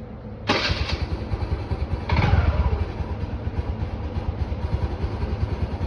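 TVS Jupiter scooter's single-cylinder four-stroke engine started on the electric starter: the starter cranks about half a second in, the engine catches with a brief rev that falls back about two seconds in, then idles steadily. The owner hears an odd noise from the engine on start-up and is unsure whether it is normal.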